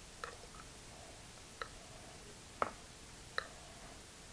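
Four light clinks of a metal spoon against a glass bowl, each with a short ring, as thick tomato sauce is scraped out of the bowl.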